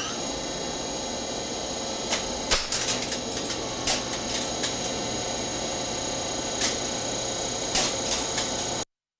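Game-show sound effect: a steady electronic hum made of several fixed tones, with irregular sharp clicks and ticks over it, cutting off suddenly near the end.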